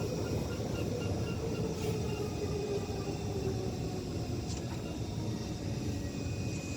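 Inside a Kawasaki C151 MRT train slowing down under electric braking: the traction motor tone falls steadily in pitch over a continuous rumble of the wheels on the rail.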